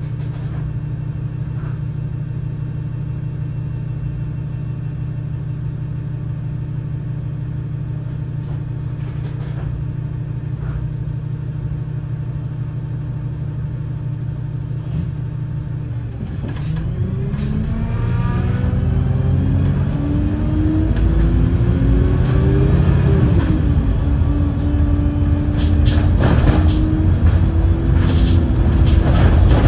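Wright Streetlite single-deck bus engine idling steadily, then a little over halfway through the bus pulls away: the engine note rises, falls briefly at a gear change, and climbs again as it gets louder.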